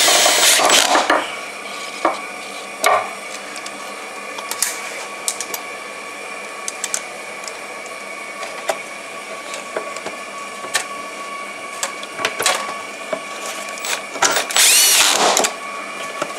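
Cordless drill/driver with a socket extension running in short bursts, driving bolts into plastic ductwork. The longer burst near the end has a rising whine as the motor speeds up. Small clicks and knocks of the socket and tool fall between the bursts.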